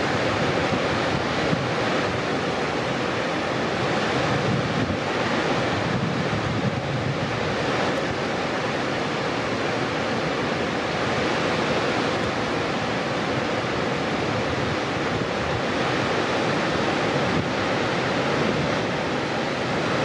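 Cave Falls, a wide, low waterfall on the Fall River, rushing steadily with an even, unbroken noise of falling water.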